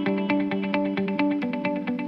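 Background music: a fast, even run of plucked notes over held chords.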